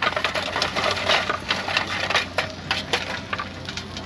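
Burning lump charcoal poured from a metal chimney starter into a charcoal grill: a dense, irregular run of clattering knocks and crunches as the chunks tumble out and land on each other.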